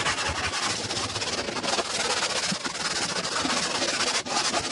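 Abrasive side of a sponge scrubbing the PVC wall of an inflatable pool, a steady rubbing scrape, working mould stains off the vinyl.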